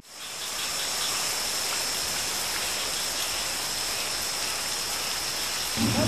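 Steady heavy rain, a dense even hiss that fades in at the start. Right at the end it cuts to a running vehicle engine and voices.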